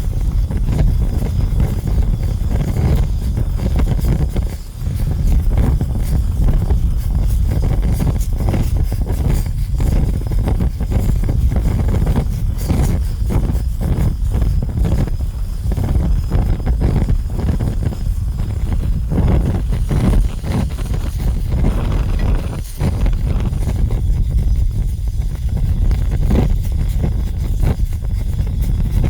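A fire burning, with a steady low rumble and frequent crackles and pops; the level dips briefly twice.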